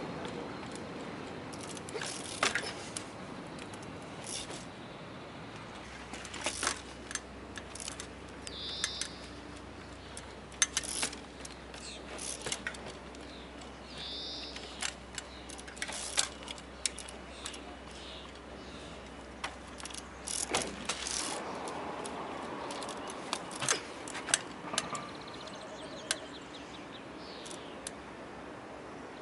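Trials bicycle hopping and landing on boulders: irregular sharp knocks and clatter from the tyres striking rock and the chain and frame rattling, dozens of times. A bird chirps twice in the background.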